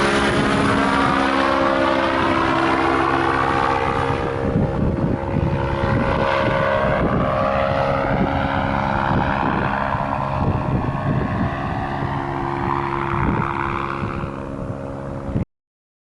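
Paramotor engine and propeller running steadily in flight, with gusts of wind buffeting the microphone. The sound cuts off suddenly near the end.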